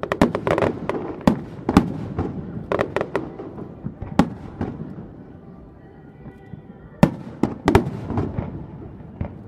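Aerial fireworks shells bursting overhead: loud, sharp bangs in quick clusters with rumbling echoes, easing off midway, then a fresh volley of bangs about seven seconds in.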